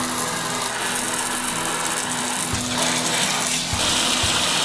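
Water spraying steadily from a garden hose nozzle into the water tray of a wet tile saw, filling the tray before the saw is run.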